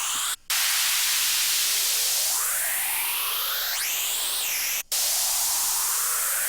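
Synthesized bright white noise through a high-pass filter and a phaser, a white noise phaser sweep: a hissing riser whose phaser bands sweep upward in pitch. It cuts out briefly twice, about half a second in and near five seconds, as the sweep restarts.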